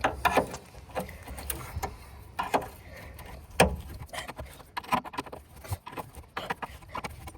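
Irregular metallic clicks and clinks of a wrench tightening the bolts of a stabilizer bar bushing clamp, with a few louder knocks.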